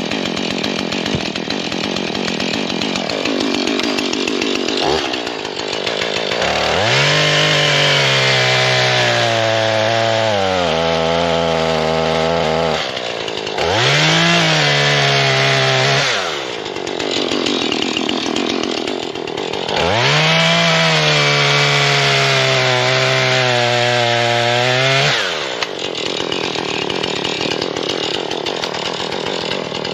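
Husqvarna 440 two-stroke chainsaw revving to full throttle and cutting through logs in three long passes, the engine pitch sagging slightly under load in each cut, then dropping back to a lower running speed between cuts; it revs up again near the end.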